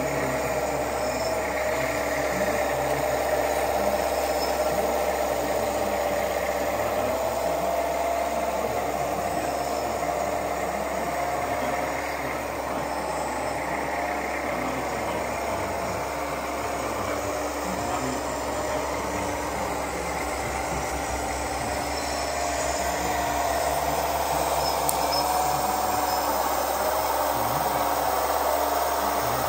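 Radio-controlled model truck running, a steady motor whine whose pitch wavers slowly up and down as it drives.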